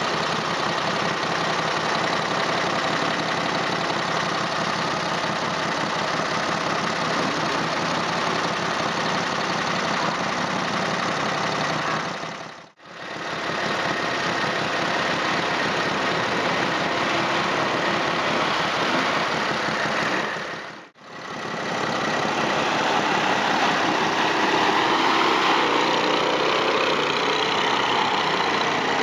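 Engines of 6x6 amphibious ATVs running steadily as the machines push through mud and water, broken twice by brief gaps at edit cuts.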